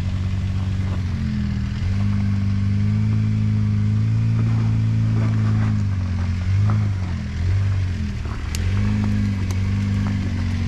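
Jeep Wrangler JLU Rubicon engine pulling at low revs while crawling off-road. The revs pick up about two seconds in, ease off past the middle and pick up again, with a couple of sharp clicks near the end.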